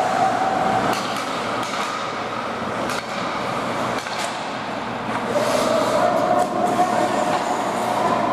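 Ice hockey game on the rink: a steady rumble of skates on ice with scattered sharp clacks of sticks and puck, over a steady hum that fades out about a second in and returns about five seconds in.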